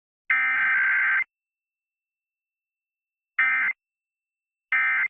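Emergency Alert System SAME digital data bursts played over radio: one burst of about a second just after the start, the last of the header bursts, then two short end-of-message bursts a little over a second apart in the second half, with silence between them.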